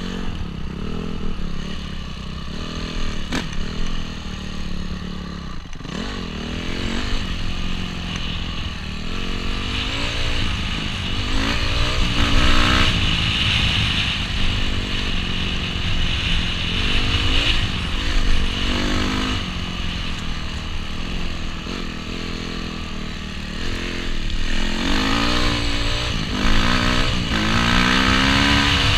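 Honda CRF250R dirt bike's single-cylinder four-stroke engine being ridden along a gravel trail, its pitch rising and falling again and again as the throttle is worked.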